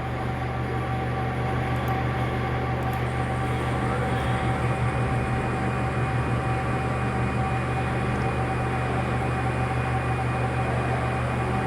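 CNC machine running after being switched on: a steady electrical and mechanical hum with a few steady whining tones. About four seconds in, a higher whine rises in pitch and then holds steady, as a motor spins up to speed.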